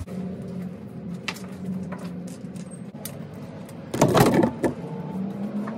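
Metal bar clamps clattering and knocking as they are handled, loudest in a burst about four seconds in. Scattered small clicks and a low steady hum run underneath.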